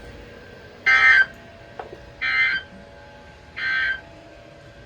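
Three short, harsh bursts of EAS SAME digital data tones from NOAA Weather Radio, about a second apart. Their shortness is typical of the end-of-message code that closes a warning.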